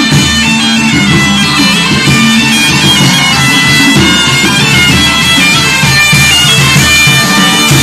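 Two bagpipes playing a melody over their steady drones.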